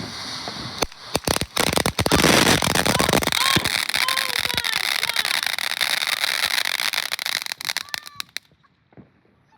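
Consumer fireworks going off: a hissing spray, then a quick series of sharp bangs, then several seconds of loud, dense crackling that cuts off suddenly near the end.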